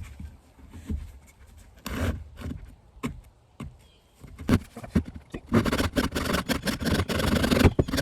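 Handsaw cutting through a wooden board: a few scattered knocks and short scrapes at first, then from about five and a half seconds in, quick, steady back-and-forth sawing strokes.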